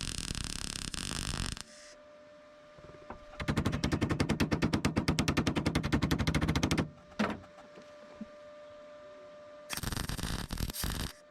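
MIG welder laying plug welds on sheet-steel body panels: three bursts of rapid, even crackle, the longest lasting about three seconds, with short pauses between welds.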